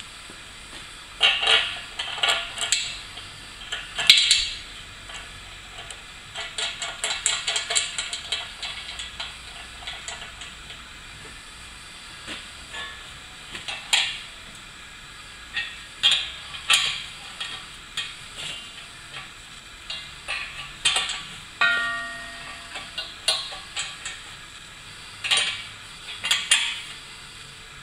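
A steel spanner clinking against nuts and bolts as they are tightened down onto a steel wheel's centre: scattered sharp metal clinks, scrapes and quick runs of ticks. A short metallic ringing note sounds a little past the middle.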